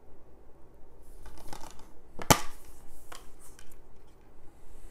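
Plastic Blu-ray case being handled and snapped open: some rustling, one loud sharp click about halfway through, then a few lighter clicks.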